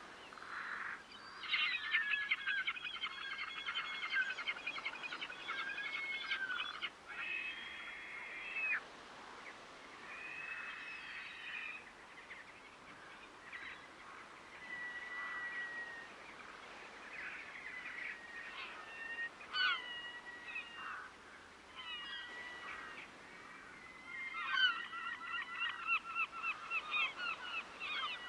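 Birds calling over water. Fast chattering bursts come about two to seven seconds in and again near the end, with scattered single calls in between.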